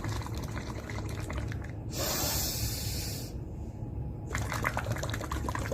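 Breath blown through a drinking straw into a glass of water, bubbling in two spells, with a short hissing breath between them, as in a bubble-blowing breathing exercise.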